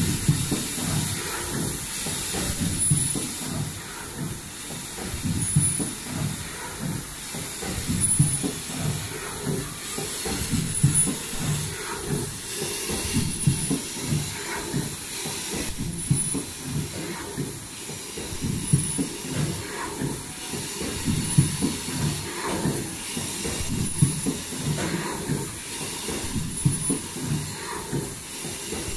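Automatic folding-mask production machine with valve welding running, a dense fast mechanical clatter with air hissing. A short high-pitched tone recurs about every two seconds with each machine cycle.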